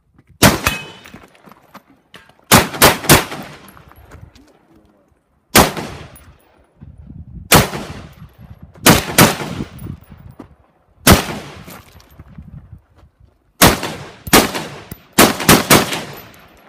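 Rifle shots fired in an IPSC rifle stage: about fifteen sharp shots in irregular groups of one to three, with pauses of one to two seconds between groups, each shot trailing off in echo.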